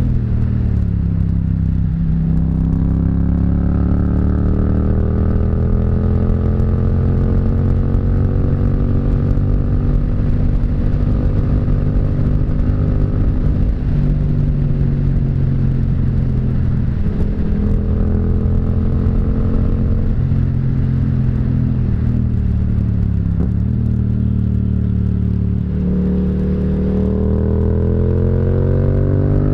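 Yamaha MT-07's parallel-twin engine and exhaust under way, its pitch falling as the throttle closes and rising again as it opens, several times over. It climbs in one long rising pull near the end.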